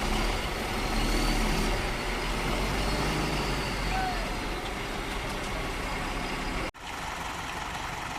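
Heavy diesel vehicle engine running with a steady low rumble. It breaks off abruptly near the end and resumes more quietly.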